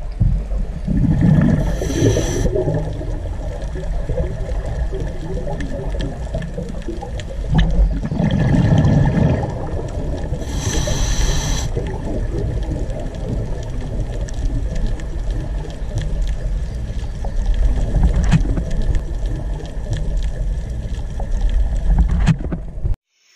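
Running water of a rocky stream with a heavy low rumble that swells a couple of times, like wind on the microphone.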